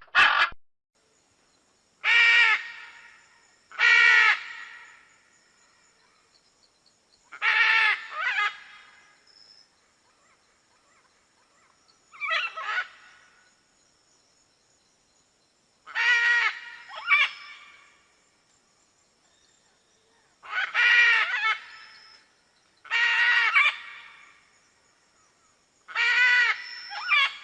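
Macaw squawking: about ten harsh, raucous calls, each under a second long, some in quick pairs, separated by pauses of a second or more.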